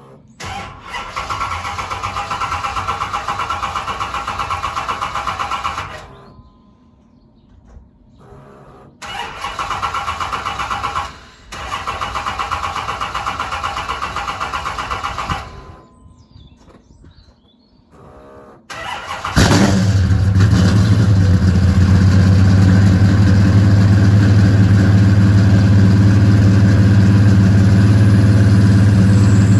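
Cold start of a 1968 Dodge Coronet's 513-cubic-inch V8. The starter cranks it in three spells of a few seconds each, with short pauses between them. The engine catches about 19 seconds in and settles into a loud, steady idle.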